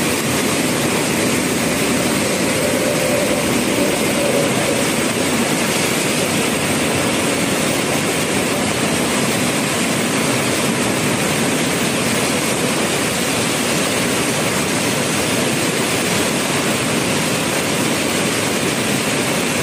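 Muddy floodwater rushing in a swollen, fast-flowing river: a loud, steady rushing noise.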